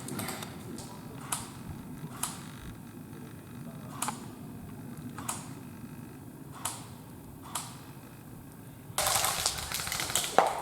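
Airsoft guns firing: single sharp shots spaced a second or two apart, then a rapid run of shots near the end.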